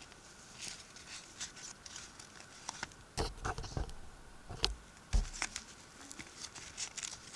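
Small clicks, taps and rustles of hands taking a 2032 coin-cell battery out of its packaging, with a few heavier knocks between about three and five seconds in.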